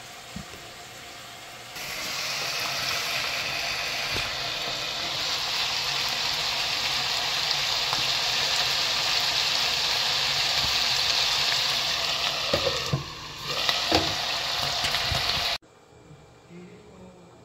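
Chunks of pork sizzling as they fry in a pan, a steady hiss that begins about two seconds in. It dips briefly near the end with a few knocks, then cuts off suddenly.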